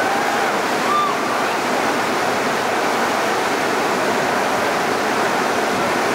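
Whitewater rapids rushing steadily: a loud, even roar of churning water.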